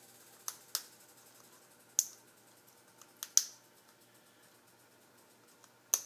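Eclectus parrot biting pieces off a stiff pasta noodle held in its foot: about six sharp, separate cracks of the beak snapping the pasta, loudest about two and three and a half seconds in.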